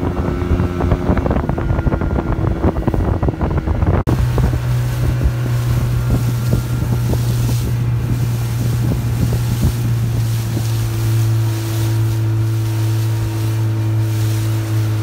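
Small motorboat's engine running steadily at cruising speed, with wind buffeting the microphone and water splashing against the hull. About four seconds in the sound changes abruptly, and the engine hum comes through much stronger and steadier from then on.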